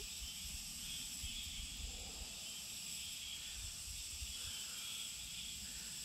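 Steady, high-pitched chorus of insects singing in a summer forest, several unbroken shrill tones held throughout.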